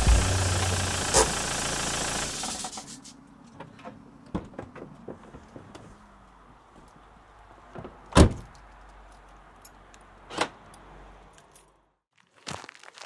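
Car noise dies away over about a second as the car stops. Then come small clicks and keys jingling, and a car door shutting with a heavy thump, with a second thump about two seconds later. A faint low hum cuts off, and footsteps begin near the end.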